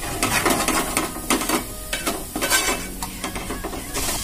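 Steel spoon stirring and scraping a thick onion-coconut masala paste around a metal pot in repeated, uneven strokes, with the paste sizzling as it fries in oil.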